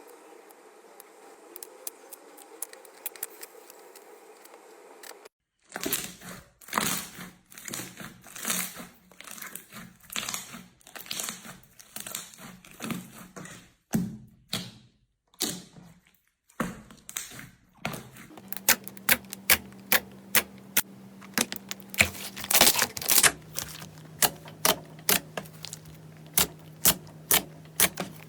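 Slime being handled for ASMR: faint clicking, then after a short break squelching, crackling presses that swell and fade, and in the last ten seconds a steady run of sharp snapping pops, nearly two a second.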